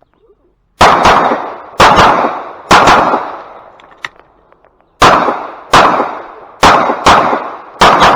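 A string of 9mm Glock 45 pistol shots fired on the clock in a USPSA stage: three shots about a second apart, a pause of about two seconds, then five more in quick succession, each shot ringing out briefly.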